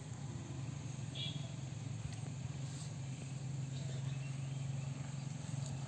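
Steady low machine hum, with a short high chirp about a second in.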